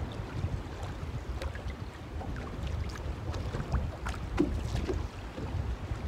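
Wind buffeting the microphone in a rising and falling low rumble, with choppy water lapping at the boat's hull and a few light clicks and knocks.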